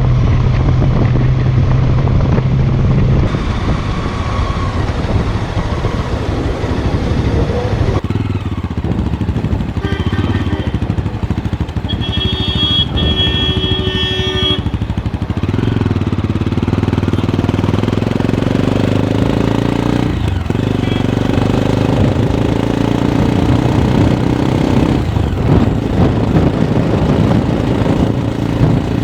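Mahindra Mojo 300's single-cylinder engine running through its exhaust while being ridden, its pitch rising as it accelerates about halfway through. Just before that, a brief steady high tone.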